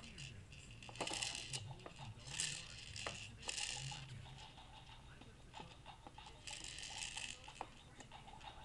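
Small loose pieces rattling inside a clear plastic dome toy on a baby's activity jumper as the baby's hands work it, in four short bursts.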